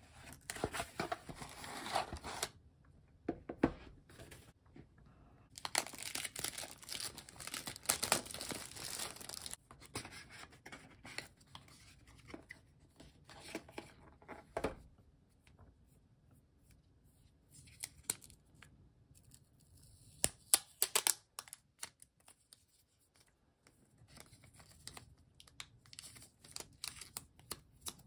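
Packaging handled by hand: a cardboard box and crumpled kraft packing paper rustling and crinkling, then a small retail box opened and protective plastic film worked off an earbud charging case. It comes in bursts of crinkling and tearing with short clicks and taps between, and a quieter stretch in the middle.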